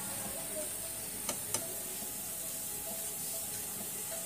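Gulgule (flour fritters) deep-frying in a pan of hot oil: a steady sizzle. Two short sharp clicks come about a second and a half in.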